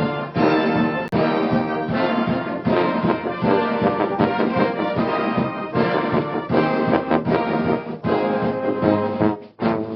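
Full brass band playing a loud, busy passage of a contemporary concert piece, with cornets, horns and trombones together and frequent short, accented notes; a brief break comes near the end.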